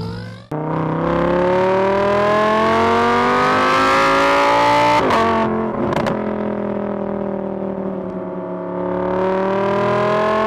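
Car engine revving up, its pitch climbing steadily for about four seconds, dropping sharply about five seconds in as at a gear change, then climbing again near the end.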